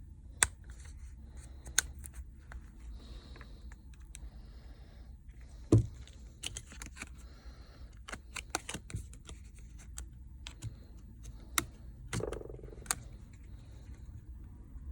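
Plastic pry tool worked around the edge of a Samsung Galaxy A21, giving irregular sharp clicks and snaps as the small plastic side clips of the frame let go, with one louder snap about halfway through. A low steady hum runs underneath.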